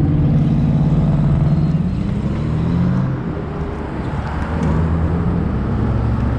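Road traffic at a busy intersection: motor vehicle engines running and moving past, with wind rumbling on the microphone.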